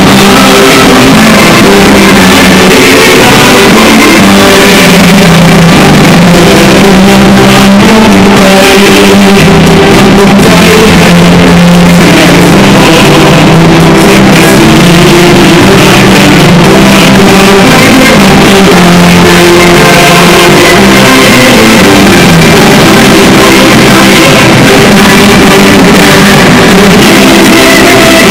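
Loud music playing without a break.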